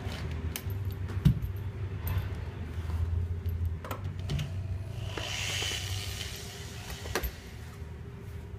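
Scattered metal clicks and clinks as an armrest mounting bracket and its screws are handled and worked with a cordless drill/driver on a seat back, with a short hissing rustle about five seconds in.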